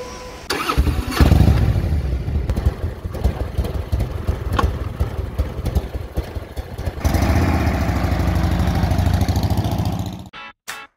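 Motorcycle engine starting about half a second in and running with blips of the throttle, growing louder at about seven seconds, then cutting off suddenly near the end.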